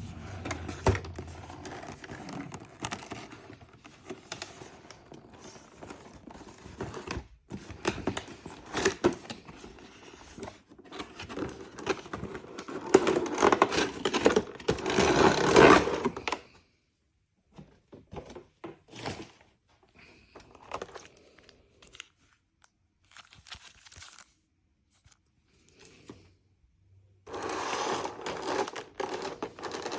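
Toy packaging being unwrapped by hand: crinkling and tearing in bursts, loudest a little before the middle. Then a long near-quiet stretch with a few light clicks and knocks, and the crinkling starts again near the end.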